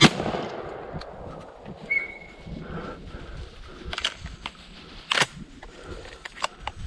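A single shotgun blast right at the start. It is followed over the next few seconds by several quieter sharp cracks and clicks, the loudest of them about five seconds in.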